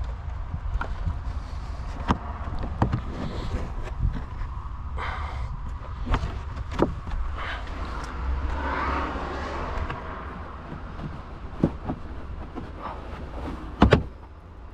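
Scattered clicks and knocks of hand work on a car: parts and connectors being handled, the loudest knocks about fourteen seconds in, with a rustle in the middle, over a steady low hum.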